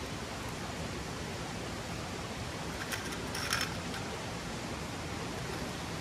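Steady rush of a gushing stream and river, with a brief cluster of clicks about halfway through.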